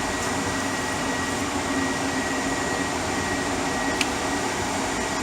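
Data-center air conditioning and equipment cooling fans running as a loud, steady rush, with a thin steady whine above it. A faint tick about four seconds in.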